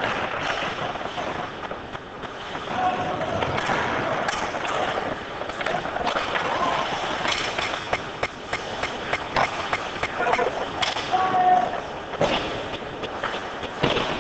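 Ice hockey play: skate blades scraping the ice and sticks and puck clacking many times, with short shouts from players and spectators.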